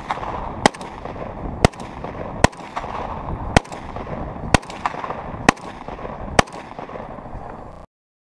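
AK-47-pattern rifle fired in semi-automatic, seven single shots roughly a second apart. The sound cuts off suddenly just before the end.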